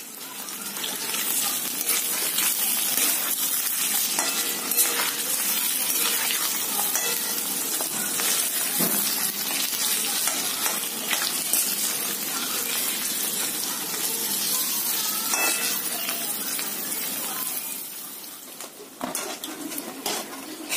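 Paneer cubes sizzling as they shallow-fry in hot oil in a metal kadhai, with a metal spoon clinking and scraping against the pan as the pieces are turned. The sizzle gets quieter near the end.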